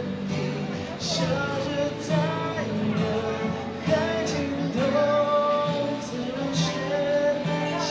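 Live band music: a singer's held notes over strummed acoustic guitar, with light percussion keeping the beat.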